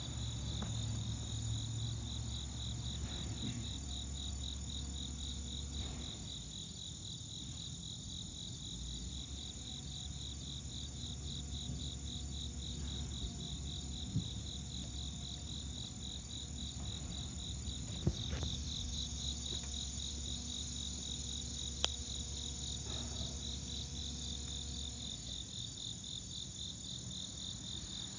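A steady chorus of crickets chirping in a fast, even pulse, with a low rumble coming and going underneath and a few faint clicks.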